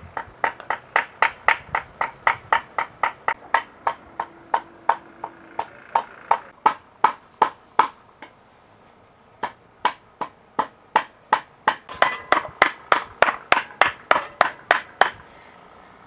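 Knife chopping on a cutting board: a steady run of sharp strikes about three or four a second. It stops for about a second around eight seconds in, then picks up again a little faster near the end.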